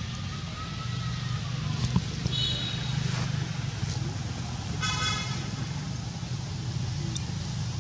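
Steady low hum of road traffic, with a short vehicle horn toot about five seconds in and a briefer, higher tone about two and a half seconds in.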